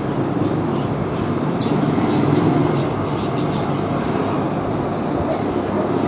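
Steady background rumble and hum, with a few faint clicks about two seconds in.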